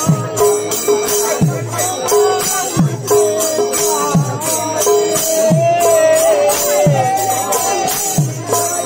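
Music with a drum beat about every second and a half, each low stroke sliding down in pitch, over jingling cymbal-like strokes, a held steady drone and a wavering melodic line.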